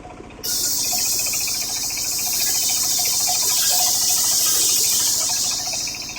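Homemade engine-driven circular saw cutting through coconut-palm (glugu) timber. A harsh high hiss starts suddenly about half a second in and holds until near the end, over the steady pulsing of the engine.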